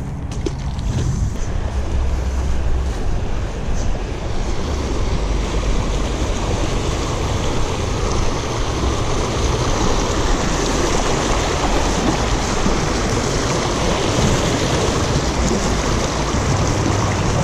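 Fast-flowing creek water rushing over rocks and a concrete ledge, making a steady, unbroken noise.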